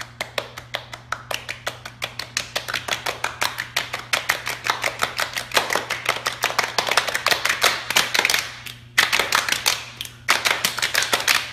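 Many hands slapping a wooden floor in quick succession, a rapid patter of slaps that breaks off briefly twice near the end.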